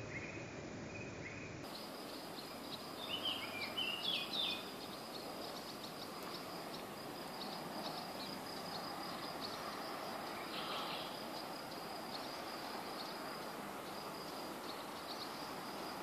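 Natural ambience: insects chirping steadily in rapid high ticks over a soft hiss, with a short burst of bird calls about three to four seconds in.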